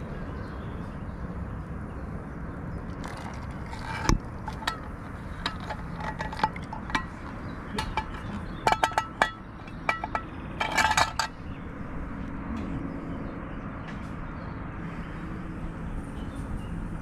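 Stainless steel camping pot and metal cookware clinking: a string of sharp metallic clinks with brief ringing, between about three and eleven seconds in, over a steady low background rumble.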